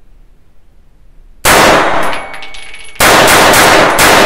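UTAS UT9M 9×19 mm carbine fired rapidly: a short string of shots about one and a half seconds in, then a longer string from about three seconds in with a brief break just after four seconds. A high ringing lingers after the shots.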